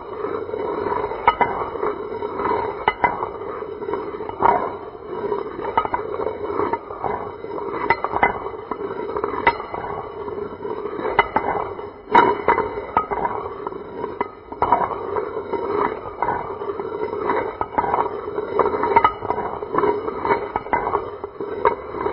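Metal gear wheels turning: a steady whirring hum with frequent irregular metallic clanks and clicks as the teeth mesh.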